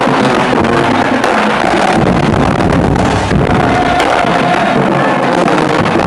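Loud live music from a high school marching band, playing continuously.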